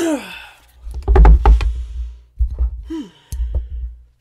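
A short music sting marking a segment transition: heavy bass hits with sharp strikes, and a falling, voice-like tone at the start and again near the end.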